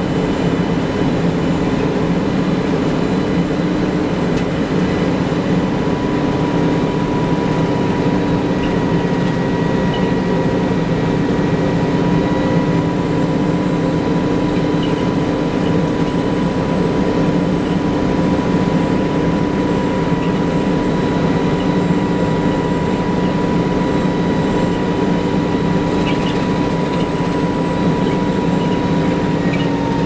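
Detroit Diesel Series 50 engine and Allison VR-731 automatic transmission of a 1994 TMC RTS transit bus, heard from inside the cabin, running steadily, with a steady high whine over the low drone. The transmission's lock-up is not engaging.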